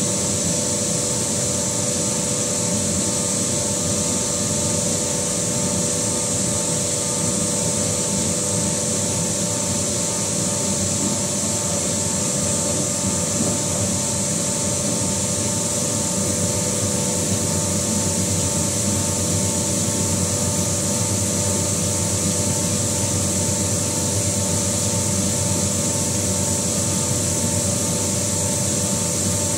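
CNC metal-spinning machine running, its mandrel turning the sheet-metal fan shroud while the forming roller presses and rubs against it: a steady rubbing hiss over the machine's hum and a few steady whining tones.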